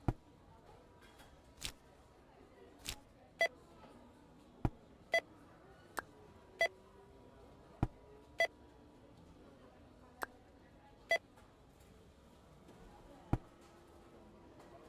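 A series of about a dozen short, sharp clicks and brief beeps at irregular intervals, some with a short ringing tone.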